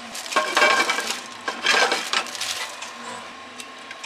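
Plastic food bag crinkling and rustling in two short, loud bursts as noodles are taken out and put into a frying pan, over a faint steady high tone.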